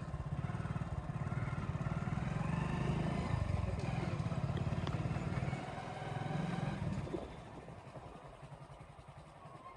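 Small two-wheeler engine running at low speed with a steady low putter, fading away about seven seconds in.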